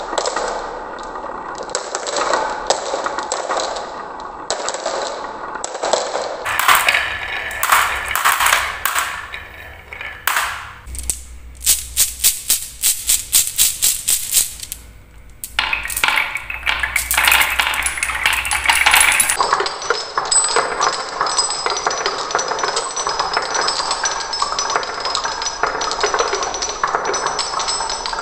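Glass and steel marbles rolling and clattering down a wooden marble run and dropping into a plastic toy dump truck. About halfway through comes a fast run of clacks. After that the marbles bounce among wooden pegs and strike metal bars on the track, which ring with high tones.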